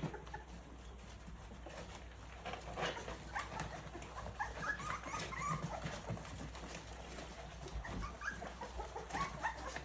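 Three-week-old Rottweiler puppies whimpering and squeaking in short, high calls that come thicker from a couple of seconds in, with scattered small clicks among them.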